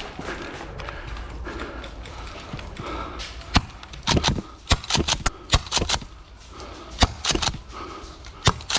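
Airsoft guns firing: scattered sharp snaps, first singly, then in quick clusters of several shots from about three and a half seconds in.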